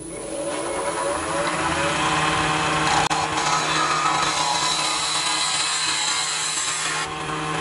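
Wood lathe motor spinning up, rising in pitch over the first couple of seconds, then running steadily while a skew chisel, laid flat as a scraper, cuts the spinning pen blank and throws off shavings.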